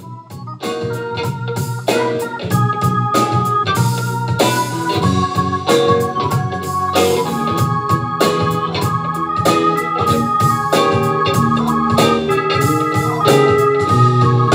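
Funk band playing live: a Nord Electro 5 stage keyboard with an organ sound holding chords over electric bass, electric guitar and a drum kit keeping a steady beat. The music comes in right at the start and is full by about a second in.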